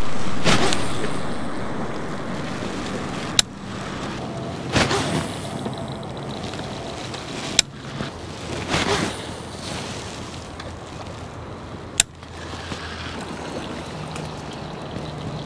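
Baitcasting reel being cranked in a slow retrieve, under steady wind noise on the microphone, with three sharp clicks about four seconds apart.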